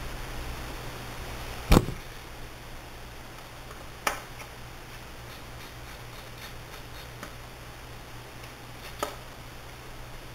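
Three sharp clicks, the first the loudest, with a few faint ticks between them, over a low steady hum: a screwdriver and small screws being worked while the screws around a laptop's LCD panel are taken out.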